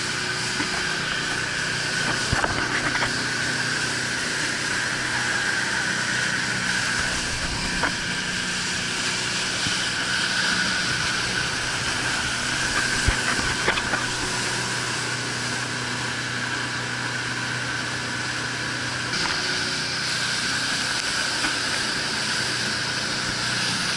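Fast rescue boat under way at speed: its engine runs with a steady drone and a high whine, over rushing wind and water. A few sharp knocks stand out.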